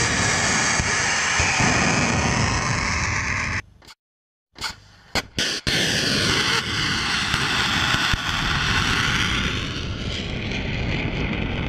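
Missiles launching from ground launchers: a loud rushing rocket roar. It breaks off for about half a second around four seconds in, then comes a few short bangs and another long roar whose tone sweeps down and back up.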